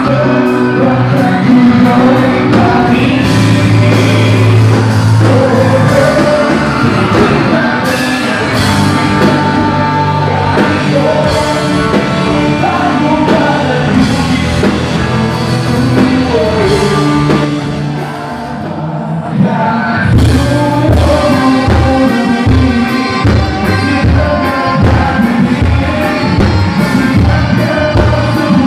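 Live rock band playing loudly with a lead singer. The bass and drums drop out briefly about two-thirds of the way through, then a steady beat comes back in.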